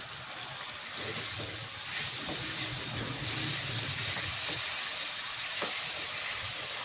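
Onion, tomato and capsicum masala frying in a wok with a steady hiss, wetter just after tamarind pulp has been poured in. A wooden spatula stirs through it with a few soft knocks against the pan.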